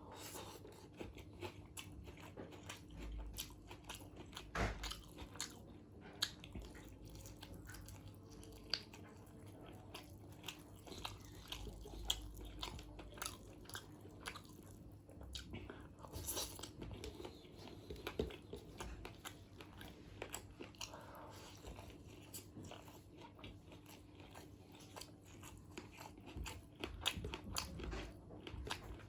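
A person eating chicken biryani close to the microphone: continuous wet chewing and biting, with many small crunches and clicks, and a louder crunch now and then.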